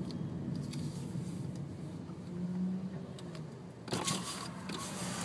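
Low rumble of a car driving, heard from inside the cabin, with a louder broad hiss that comes in suddenly about four seconds in.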